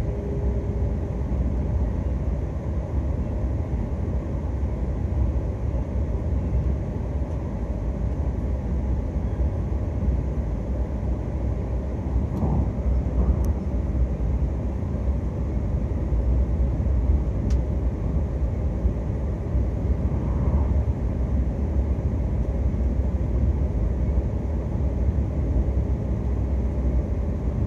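E6-series Komachi shinkansen train running on the line, heard inside the passenger cabin as a steady low rumble.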